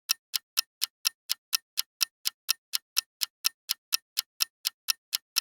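Clock-ticking sound effect of a quiz countdown timer: sharp, evenly spaced ticks, about four a second.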